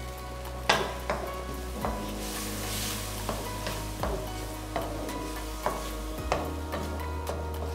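Wooden spatula stirring a chicken and vegetable filling in a hot wok, knocking and scraping against the pan about twice a second over a light sizzle; the loudest knock comes just under a second in.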